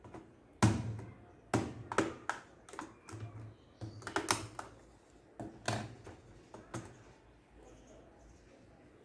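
About a dozen irregular clicks, taps and knocks of laptop parts and tools being handled during a hard drive installation, bunched over the first seven seconds, then stopping.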